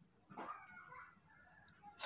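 Faint, wavering squeaks from a baby monkey being bottle-fed, lasting about a second.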